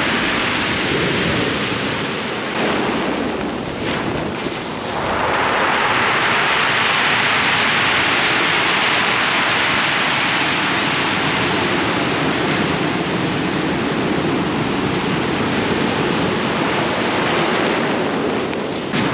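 Ocean surf rushing onto the beach, swelling louder about five seconds in and then holding steady.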